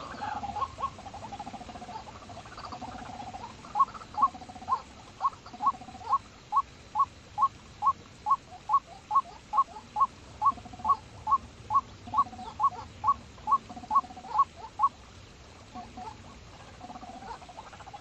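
Bird calls: a long, even run of short rising chirps, about two and a half a second, starting about four seconds in and stopping near fifteen seconds, with a lower warbling call before and after.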